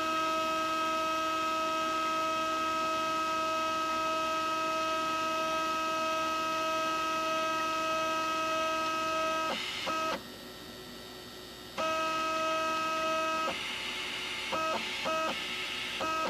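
Bench-mounted CNC stepper motor (the Z-axis motor) spinning under its chopper driver, giving a steady pitched whine. About nine and a half seconds in it stutters and stops, resumes after a second and a half, then runs in short, rougher stop-start spells near the end: a funny sound whose cause the owner is not sure of.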